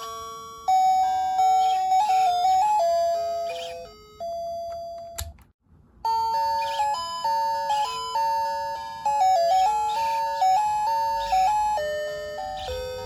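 Seiko QM741W alarm clock's electronic melody chime playing a tune in clean, simple tones. The tune ends about five seconds in, there is a short click and a brief pause, and the next melody starts about a second later.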